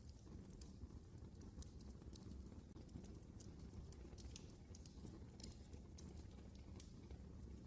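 Faint wood fire crackling in a fireplace: scattered, irregular sharp snaps and pops over a low, steady rumble of the flames.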